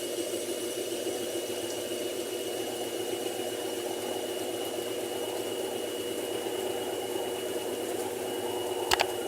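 General Electric washing machine running with a steady, even hum and no bearing grinding, its worn drum bearings newly replaced. Two sharp clicks close together near the end.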